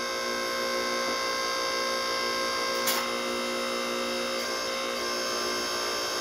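A 3 hp two-stage hydraulic power unit running on a forge press, its electric motor and pump giving a steady hum while the ram is worked up and down by the control valve during the first test run. A single sharp click about three seconds in.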